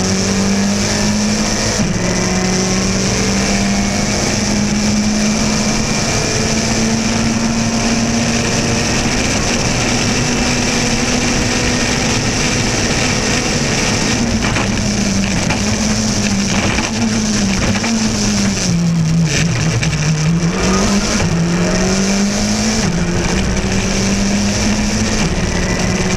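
Skoda Fabia RS Rally2's turbocharged 1.6-litre four-cylinder engine under hard load, heard from inside the cockpit over heavy road and wind noise. Its note holds mostly steady at high revs, drops briefly about nineteen seconds in as the driver lifts, then climbs again.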